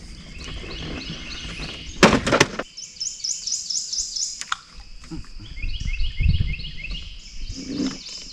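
Songbirds singing fast runs of repeated high, clear notes, about five a second, in two stretches. A single sharp knock about two seconds in is the loudest sound.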